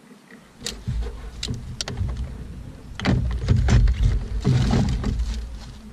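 Knocks, clicks and rustling in an aluminium fishing boat as a man shifts his weight and handles a bait jar, over a low rumble. The rumble starts about half a second in and grows louder about three seconds in.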